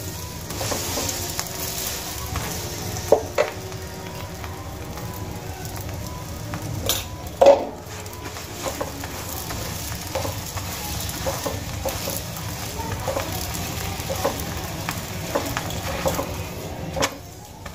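Semolina paratha frying in oil on a nonstick tawa, sizzling steadily, while a silicone spatula presses and scrapes it in short strokes. A few louder knocks of the spatula stand out, about three and seven seconds in.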